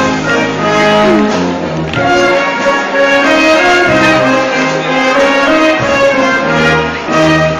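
Moravian folk dance music played loudly and steadily, with a bass line stepping from note to note under the melody.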